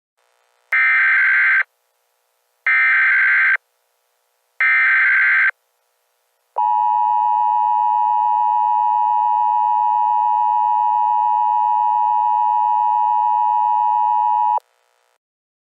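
Emergency Alert System broadcast tones: three short bursts of SAME header data about two seconds apart, then the steady two-tone EAS attention signal held for about eight seconds before it cuts off.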